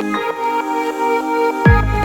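Electronic background music with held synth notes; near the end a deep falling bass sweep brings in a heavy bass line.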